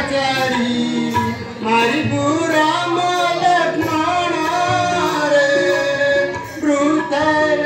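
A song for the stage play: a voice singing long, wavering melodic lines over drum and instrumental accompaniment.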